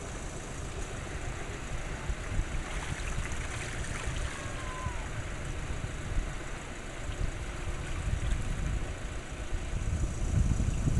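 Sea-Doo Wake 230 personal watercraft running out on the water, heard under wind rumbling on the microphone, with the rumble growing stronger near the end.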